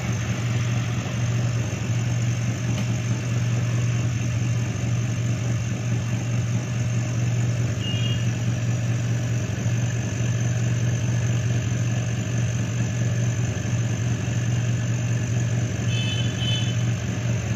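Vacuum pump of an SKT phone-screen vacuum laminating machine running through its laminating cycle with a steady, loud hum. There is a short high beep about eight seconds in and a few more near the end.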